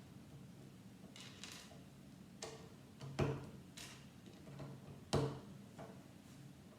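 Plastic Lego bricks being handled and pressed together: a scattering of short clicks and taps, the two loudest snaps about three and five seconds in.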